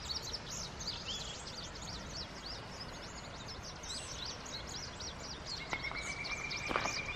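Wild birds chirping and singing in a spring meadow: a dense run of quick high chirps from several birds over a low steady rumble. About six seconds in a long steady high note starts, with a few soft knocks near the end.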